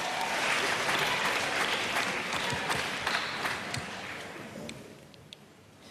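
Studio audience applauding, dying away over the last two seconds to a few scattered claps.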